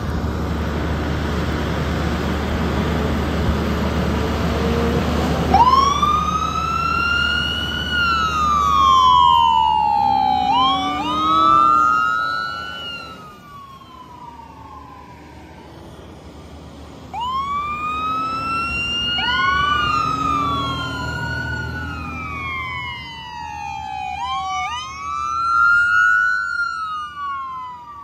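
Fire engine sirens wailing: repeated sweeps that rise quickly and fall away slowly, often two sirens overlapping, starting about five seconds in and pausing briefly in the middle. Before the sirens, a steady hiss of heavy rain.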